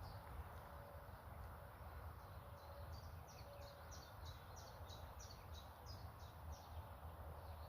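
A small bird singing a string of short, high, falling notes, about three a second: briefly at the start, then again for about four seconds in the middle. A faint low steady rumble lies beneath.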